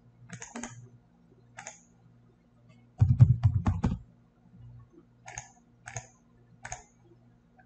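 Computer keyboard typing: a quick run of about five keystrokes about three seconds in, entering a length value, with single clicks scattered before and after.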